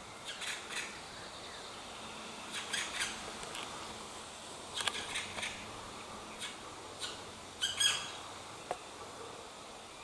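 Black woodpecker giving short high-pitched calls in small groups, several times over, with a sharp tap-like click near the end.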